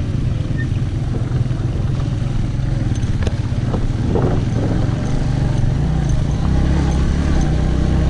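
Motorcycle engine running steadily while riding over a rough dirt track, with road noise and rattle, and a single knock about three seconds in. The low engine note grows stronger in the second half as the bike climbs a dusty slope.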